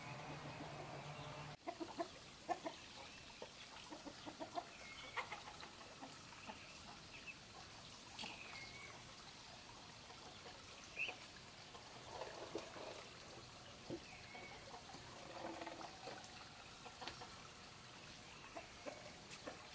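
Background music cuts off abruptly about a second and a half in. After it come faint, scattered clucks of farmyard chickens with small clicks and knocks between them.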